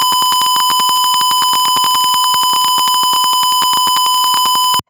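Simulated piezo buzzer of an Arduino fire-alarm circuit in Tinkercad, sounding one loud, steady, high-pitched electronic tone with a fast, even crackle through it: the alarm set off by smoke reaching the gas sensor. The tone cuts off suddenly near the end.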